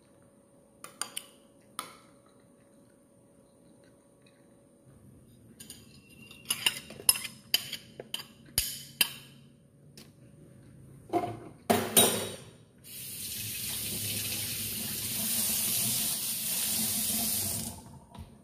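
A metal spoon clinking against a bowl, then a run of clinks and clatters as dishes are handled, followed by a kitchen tap running steadily into a stainless steel sink for about five seconds before it is turned off near the end.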